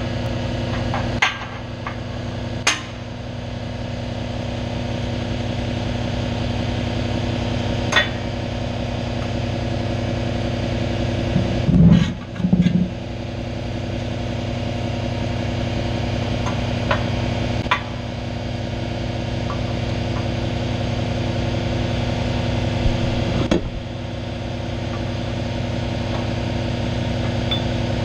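Scattered metal clinks and knocks of steel parts and tools being handled at a hydraulic shop press, with two heavier thuds near the middle, over a steady machine hum.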